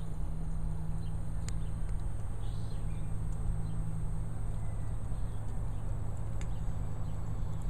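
A steady low hum or rumble, with a faint thin high whine over it and a few light clicks.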